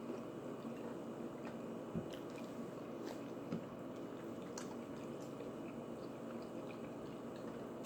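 A person chewing a mouthful of food, quiet mouth sounds with a few scattered faint clicks.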